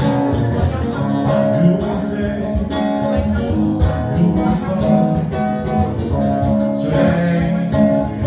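Live band music, an instrumental passage between sung lines: guitar playing over held notes and a steady beat.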